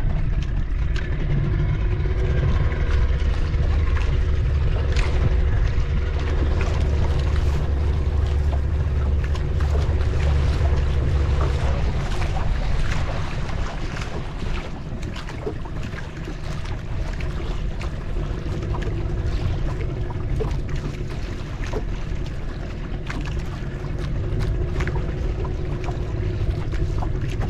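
A fishing boat's engine running steadily, a low rumble that eases about halfway through, with wind on the microphone and scattered knocks and splashes.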